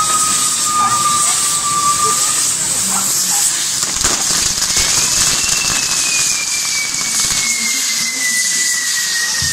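Castillo fireworks tower burning: a steady, loud hiss of spark-throwing fountains and spinning wheels. A thin whistling tone slides slowly down and stops about two seconds in. A second whistle rises about five seconds in, then falls slowly. A single crack sounds about four seconds in.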